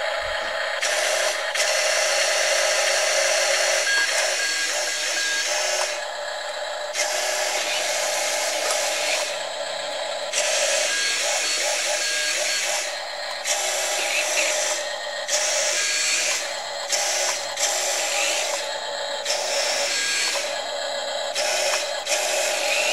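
Double E E525-003 1:20 RC Mercedes-Benz Arocs dump truck manoeuvring back and forth: its built-in sound module plays a tinny simulated truck engine over the whir of its drive motor, stopping and starting several times.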